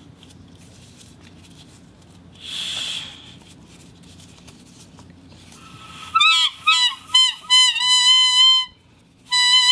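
Rubber whistle blown: after a brief rush of air, a quick run of short squeaky toots that bend in pitch, then one long steady whistle near the end.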